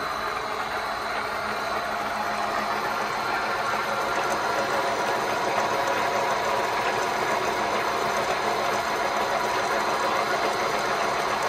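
Mikron 102-05 gear hobbing machine running steadily, its hob cutting a helical gear dry in an aluminium blank: an even mechanical whir with a low hum and a faint high whine.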